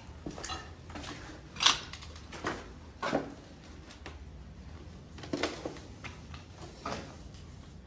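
Footsteps crunching and scraping over fallen plaster and rubble on a bare floor: about six irregular crunches, the sharpest a little under two seconds in.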